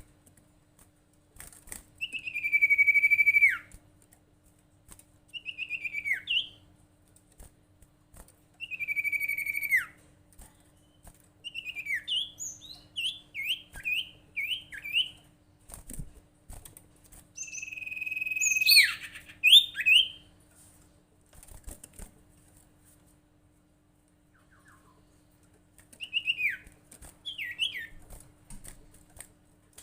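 Sirtu songbird calls: long drawn-out whistles that drop in pitch at their end, three times in the first half, alternating with quick runs of short rising chirps. A faint steady hum lies underneath.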